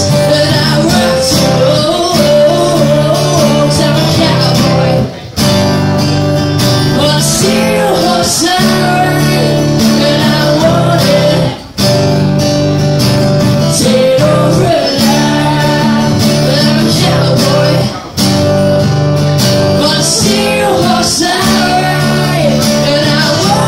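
Live song: a strummed acoustic guitar with a singer's voice over it. The music drops out briefly about every six seconds.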